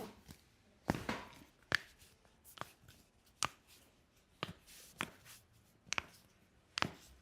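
A series of about eight sharp slaps or knocks, roughly one a second, from hands striking a patient's body during a chiropractic treatment.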